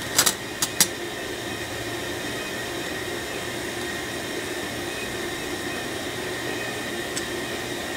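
A few sharp clicks of small metal distributor parts being handled in the first second, then only a steady background hum and hiss with a faint high whine.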